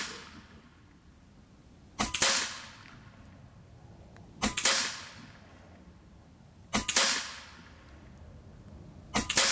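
Taipan Veteran II Tactical .25-calibre PCP air rifle firing 60-grain slugs: four shots about two and a half seconds apart. Each is a sharp double crack with a short ring-off.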